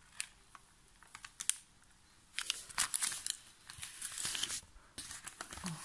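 Baking paper crinkling and rustling as it is peeled off the side of a freshly baked sponge cake. A few light crackles come first, then a busier stretch of crinkling from about two seconds in until near the end.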